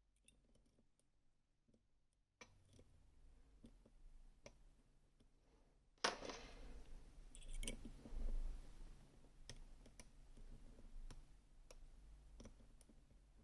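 Faint small clicks and scrapes of lock-picking tools working in a Gerda Exxo lock, with a sudden louder clatter about six seconds in and more scattered clicks after it.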